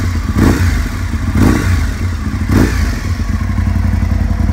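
2004 Aprilia RSV Mille R Factory's 997cc fuel-injected V-twin running through an Arrow aftermarket exhaust. It is idling and gets three short throttle blips about a second apart, then settles back to a steady idle.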